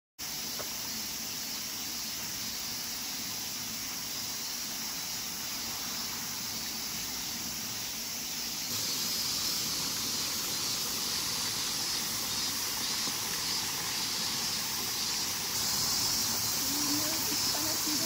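Steady rushing of flowing spring water, growing louder in two steps, about nine seconds in and again near the end.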